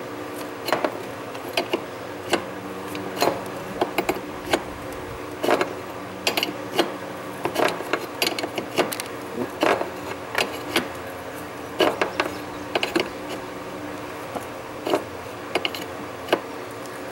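Open-end wrench on a transmission cooler line fitting at a car radiator, giving irregular sharp metallic clicks as it is turned, lifted off and set back on the nut, over a steady low hum.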